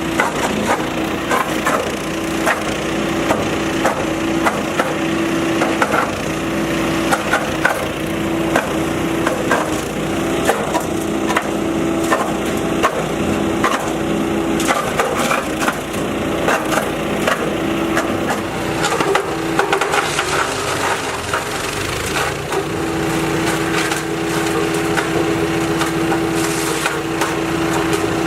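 Rock Machinery RX-13 petrol wood chipper, its Briggs & Stratton XR2100 engine running steadily, shredding branches and logs with continuous cracking and splintering of wood. About twenty seconds in, its steady note drops away briefly under the load, then comes back.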